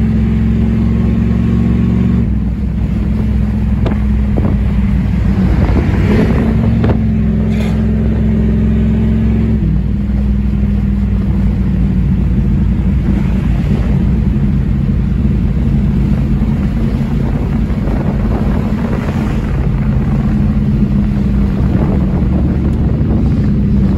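The 5.9-litre V8 of a Jeep Grand Cherokee ZJ with bolt-on mods, cruising, heard from inside the cabin with road noise. The engine note changes twice, about two seconds in and near ten seconds.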